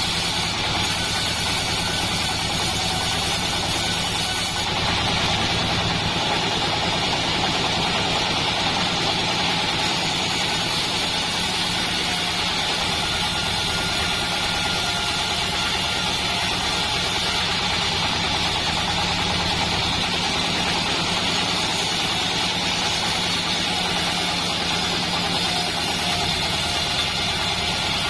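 Bandsaw mill running steadily while sawing soft wadang timber: a continuous, even mechanical drone.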